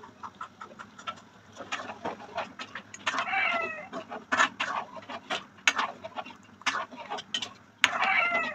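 A chicken calls twice, each call lasting under a second and falling in pitch. A metal spatula and ladle knock and scrape against a metal kadai of curry in between.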